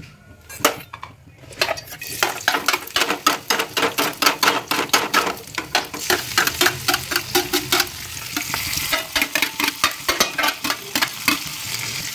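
Steel ladle scraping and clattering rapidly against a steel plate as chopped onion, tomato and green chilli are pushed into a kadai of hot oil. Sizzling builds from about eight seconds in as the vegetables hit the oil.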